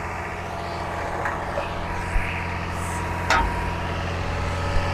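Tractor engine running steadily under load, turning a grain cart's unloading auger through its drive shaft while shelled corn pours from the spout into a semi trailer. A sharp knock sounds about three seconds in, with a few lighter clicks around it.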